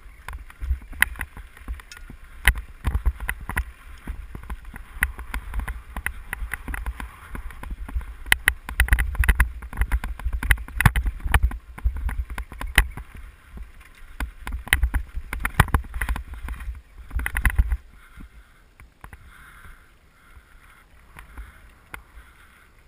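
Wind buffeting a helmet-mounted camera's microphone as a bicycle rides over a rough dirt trail, with frequent sharp rattles and knocks from the bike jolting over bumps. About eighteen seconds in, the wind rumble drops off sharply and it goes much quieter.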